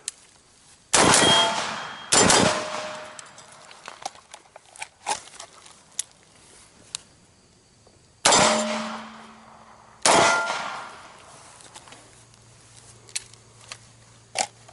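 AR-15 rifle shots about one and two seconds in; the rifle then runs dry. A few seconds of small clicks and handling noise follow as it is let go on its sling and a pistol is drawn, and then come two pistol shots about eight and ten seconds in. Every shot is followed by a long ringing fade.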